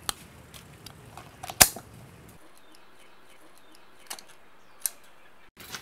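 A few sharp knocks and clicks as a whole duck is cut up on a wooden cutting board with a knife and kitchen shears. The loudest knock comes about a second and a half in.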